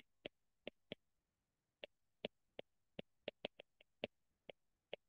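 Faint, irregular ticks of a stylus tapping and stroking on a tablet screen during handwriting, about fifteen in five seconds.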